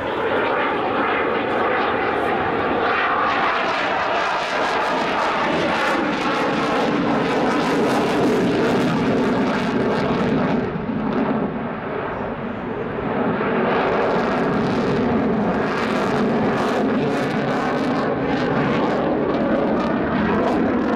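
Eurofighter Typhoon's twin EJ200 turbofan jet engines in a flying display, afterburners lit, a loud continuous jet noise with slowly sliding pitch as the jet passes. The noise eases briefly about halfway through, then swells again.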